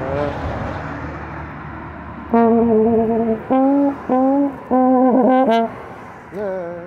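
Slide trombone played solo: after a short lull, one held note, then two short notes and a longer phrase with a slide glide in the middle, ending on a brief rising note.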